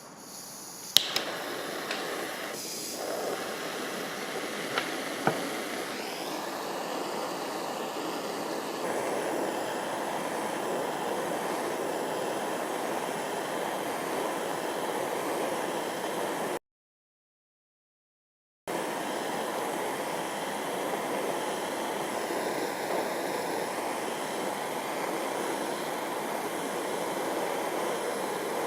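Soldering torch flame, a steady hiss, preceded by a few sharp clicks in the first seconds. The sound drops out entirely for about two seconds past the middle.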